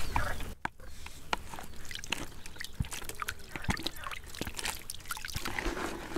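Water splashing and dripping as a hand scoops lake water into a plastic bucket of bread, then sloshing as the bread is soaked and worked by hand into groundbait. Many small drips and splashes come in quick, irregular succession.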